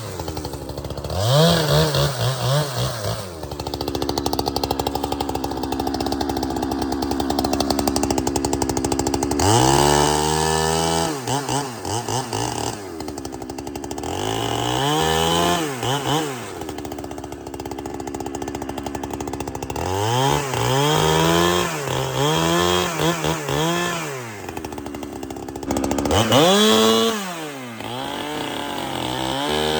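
Holzfforma chainsaw bucking firewood: the engine revs up and down again and again between cuts, and holds a lower, steady note under load through two longer cuts.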